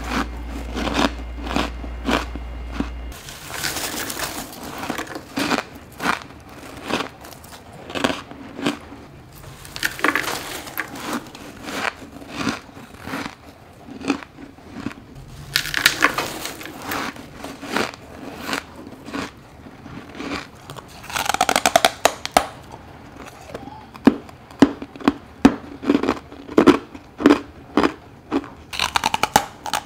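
Close, crisp crunching as a person bites and chews packed clumps of freezer frost scraped from the walls of a chest freezer: a long run of sharp, separate crunches that come thicker and louder in the second half.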